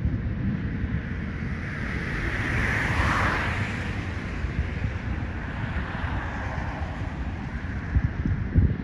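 Wind buffeting an outdoor microphone: a continuous low rumble, with a hissing gust that swells about two to four seconds in and a couple of louder buffets near the end.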